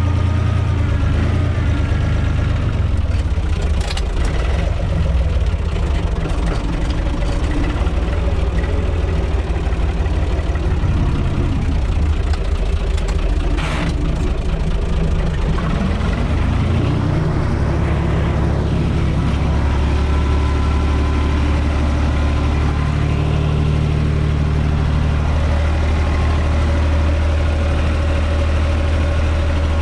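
UTB 445 tractor's diesel engine running steadily, heard from inside the cab, with a couple of sharp knocks. About halfway through, the engine note rises and settles into a deeper, stronger drone that holds to the end.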